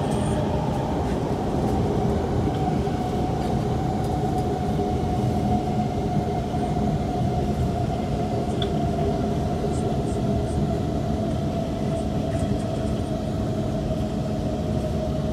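Kawasaki C151 metro train running between stations, a continuous heavy rumble of wheels on rail with a steady whine held at one pitch over it.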